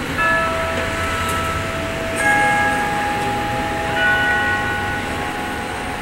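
Wako building clock tower's chime bells sounding the hour. Single notes of different pitch ring out about every two seconds, each left ringing, over steady street traffic noise.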